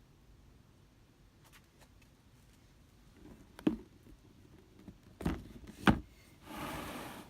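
A shoebox being handled while unboxing: about three seconds in, a few sharp knocks and taps against the box, then a short rustle near the end.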